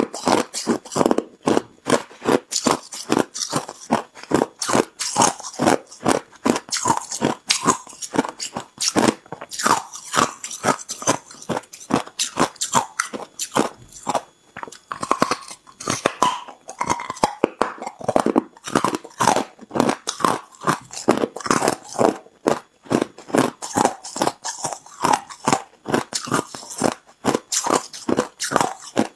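Chunks of hard ice being bitten and chewed: quick, loud crunching, several crunches a second with only short lulls.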